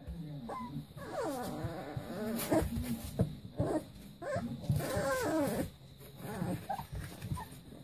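Leonberger puppies whining, in two bouts of high, wavering whines that slide down in pitch, one about a second in and another around the middle, with lower grumbling noises between.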